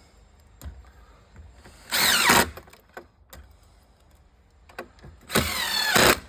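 Cordless drill-driver running in two short bursts, the second longer, with the pitch of each falling as it runs. Small clicks and knocks come between the bursts.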